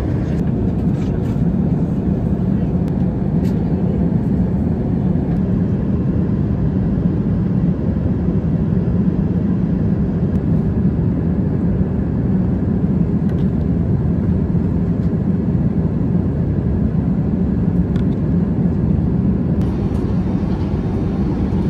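Airbus A380 cabin noise in flight: a steady low rumble of airflow and engines heard from a passenger seat, with a few faint clicks.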